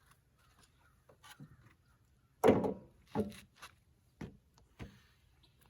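About half a dozen separate knocks and clunks, the loudest about two and a half seconds in; no engine or saw is running.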